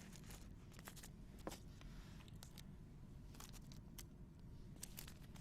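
Near silence: room tone with a low hum and a few faint, scattered light clicks.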